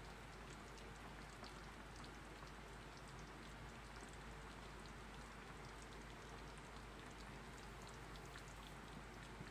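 Coconut-milk pork adobo simmering faintly in a frying pan: a steady low hiss with scattered small pops and crackles.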